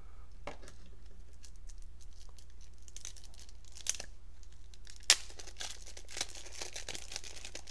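Clear plastic shrink-wrap being torn and crinkled off a deck of trading cards by hand, in scattered crackles with one sharp snap about five seconds in, then denser crinkling.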